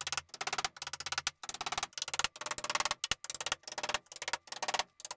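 Hammer driving nails through the flange of a steel drywall corner bead: quick runs of sharp strikes in short clusters, about two clusters a second.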